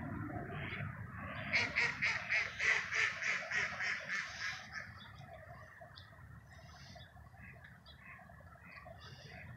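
A duck quacking in a quick run of about a dozen quacks, roughly four a second, growing weaker toward the end.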